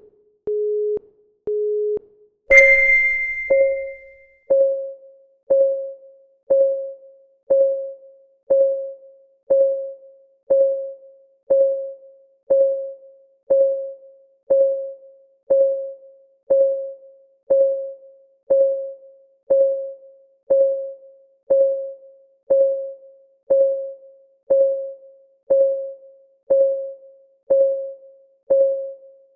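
Countdown timer sound effect: short steady electronic beeps, then a bright chime about two and a half seconds in, followed by a clock-ticking sound of short pitched tocks, one each second.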